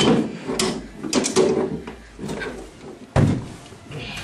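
A series of knocks and thumps, the loudest a heavy thump about three seconds in.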